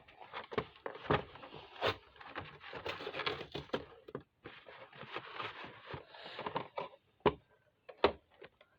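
Cardboard Pokémon card collection box being wrestled open by hand, stiff and hard to open: irregular scraping and rustling of the packaging mixed with sharp clicks and knocks, two of them standing out near the end.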